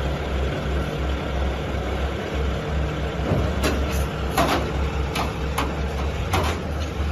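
A heavy vehicle engine running steadily with a low pulsing hum, with several short sharp knocks from about three and a half seconds in.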